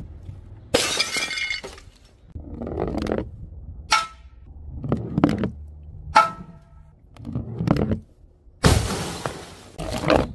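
A string of separate smashing impacts, one after another, with glass shattering. A couple of the hits ring briefly afterwards, and the longest, loudest crash comes near the end.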